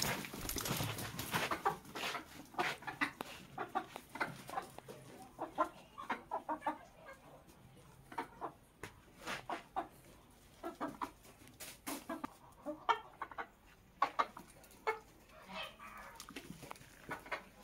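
A small flock of chickens clucking: many short calls from several birds, coming at an irregular pace.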